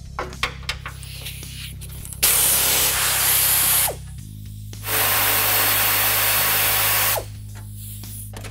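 Pneumatic air ratchet running in two bursts, about a second and a half and then about two seconds, spinning bolts off the radiator core support. Light clicks of handling the tool and parts come before.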